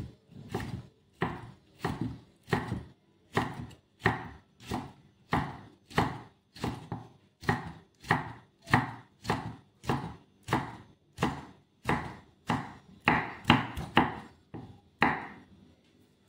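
Cleaver chopping red chilli and garlic on a wooden chopping block, in steady chops about two a second.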